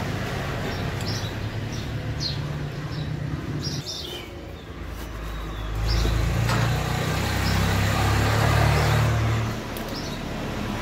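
A motor vehicle's engine hums steadily, swelling louder for a few seconds past the middle. Small birds chirp in short calls over it.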